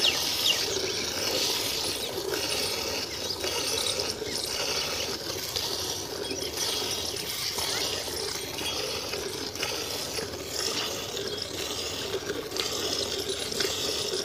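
Jets of buffalo milk squirting rhythmically into a steel bucket as a water buffalo is milked by hand.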